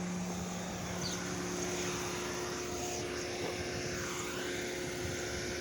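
Ford's engine idling: a steady drone with a low hum that drops away about two seconds in.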